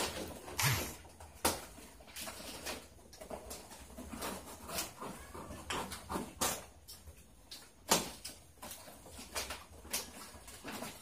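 Flat plastic weaving strips rustling and crinkling under the hands as a plastic bayong bag is woven and trimmed, in irregular scrapes and crackles with a few sharper snaps.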